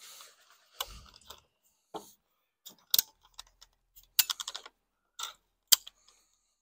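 Sharp plastic clicks and snaps from a telescoping tripod work light as it is set up, with its head and pole sections handled and extended. There is a few single clicks and a quick run of clicks about four seconds in.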